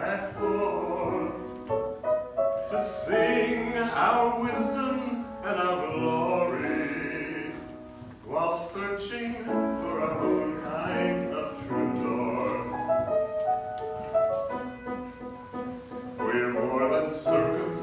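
A voice singing with musical accompaniment, holding long notes.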